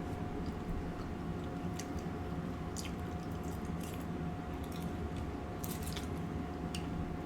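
A person chewing food close to the microphone, with a few short wet mouth clicks here and there, over a steady faint hum.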